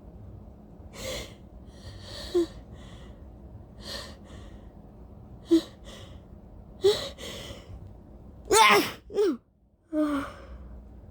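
A woman sneezing from allergies: short sniffs and quick sharp sneezes or gasps a second or two apart, then the loudest, a voiced two-part sneeze near the end, a brief hush, and one more breath.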